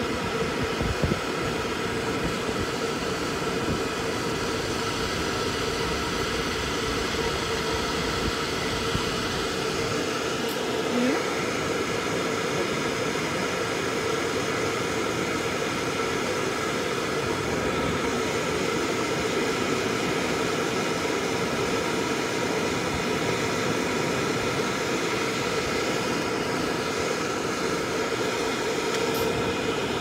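Pet dryer blower running steadily: a constant rush of air from its nozzle with a steady motor hum, blowing onto a chinchilla's fur.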